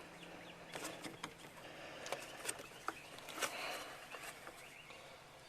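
Hands pressing a rubber dust boot back onto the rear of a headlight around the bulb leads, giving faint rubbing and scattered small clicks.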